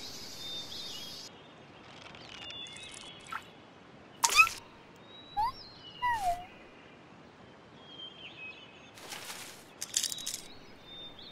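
Birds chirping in short rising and falling calls over a faint outdoor background, with a few brief rustling bursts. A steady hiss stops about a second in.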